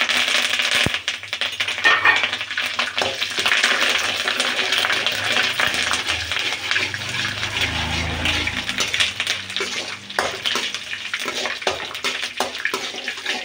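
Curry leaves, dried red chillies and mustard seeds sizzling and crackling in hot oil, with a metal spoon stirring and scraping a metal kadai. This is the tempering (tadka) being fried.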